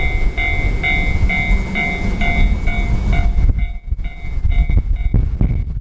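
Electronic level-crossing bell ringing in a steady repeat, about two strikes a second, under heavy wind buffeting on the microphone. About halfway through the bell drops back and the wind noise takes over.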